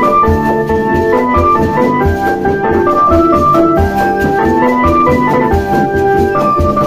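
Obrog street music blasting loud through large horn loudspeakers: an electronic organ-style keyboard melody over a steady low drum beat.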